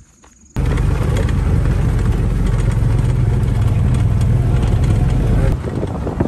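Faint insects for about half a second, then a sudden cut to a utility vehicle's engine running steadily with wind noise, heard while riding in it. About a second before the end the level drops and the ride goes on.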